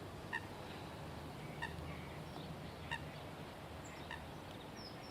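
A water bird giving short, faint calls, one about every second and a quarter, with a small bird chirping faintly near the end.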